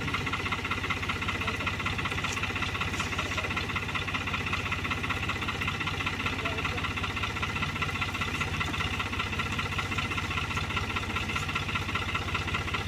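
New Holland tractor's diesel engine running steadily at an even speed, with a fast regular firing beat and no revving.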